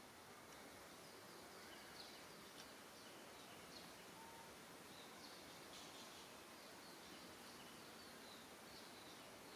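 Near silence: faint outdoor background hiss with scattered short, faint high-pitched chirps.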